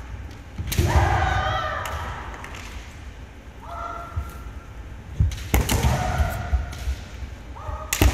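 Kendo sparring: fencers shouting long held kiai yells, bamboo shinai cracking together, and feet stamping on the wooden gym floor. A thud and a long shout come about a second in, another shout around four seconds, sharp cracks and stamps around five and a half seconds, and a shout with a sharp crack near the end.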